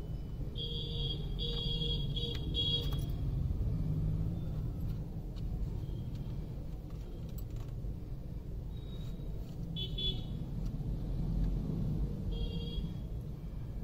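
Steady rumble of passenger train coaches rolling past a level crossing over idling road traffic, with short high-pitched vehicle horn toots: three quick ones in the first few seconds, another about ten seconds in, and one near the end.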